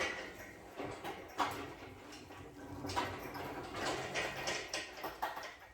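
Irregular metal clanks, knocks and scraping from work on the truck as the small-block V8 and transmission are being pulled out together.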